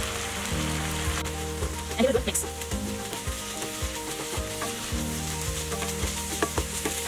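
Chicken pieces in pepper masala sizzling in a frying pan while being stirred and tossed, with light scrapes and knocks against the pan and a louder clatter about two seconds in.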